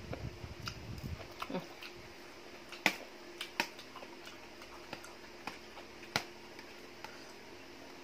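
Eating sounds: a man chewing a mouthful of spicy glass-noodle seafood salad with fresh vegetables for the first second and a half, then a few sharp clicks and mouth smacks as he forks up more, the loudest about three seconds in.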